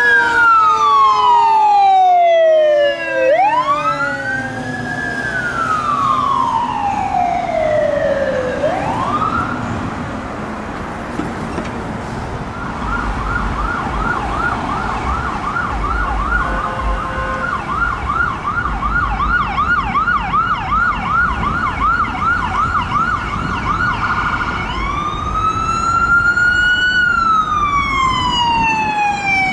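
Electronic sirens on a responding fire engine and ambulance. The siren slowly wails up and down, switches to a fast yelp of about three cycles a second through the middle, then goes back to a wail near the end, over passing traffic.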